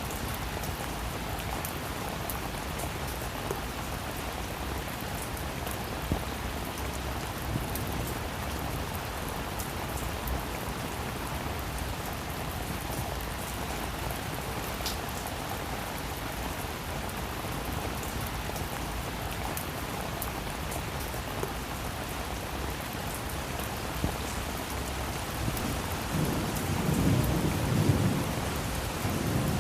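Steady rain falling, with scattered drops ticking, and a low rumble of thunder that swells near the end.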